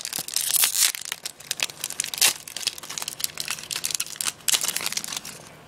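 Yu-Gi-Oh Hidden Arsenal 6 booster pack wrapper being torn open and crinkled by hand: a dense run of crackling and tearing that thins out near the end.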